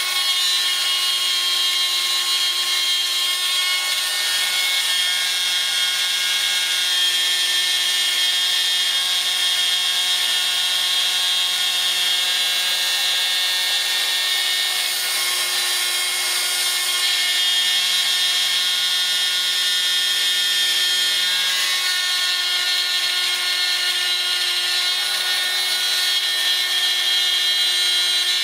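Proxxon mains-powered rotary drill running at high speed, about 20,000 RPM, in a pantograph engraver, its small cutter milling holes in a model locomotive chassis: a steady high-pitched whine.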